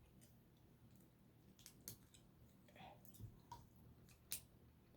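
Near silence with a few faint, short clicks of plastic LEGO bricks being handled and pressed together.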